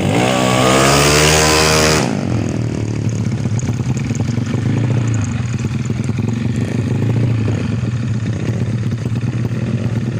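Racing Yamaha Mio scooter engine revving hard, its pitch climbing steeply for about two seconds before cutting off abruptly. After that, a lower, steadier engine rumble with some clatter.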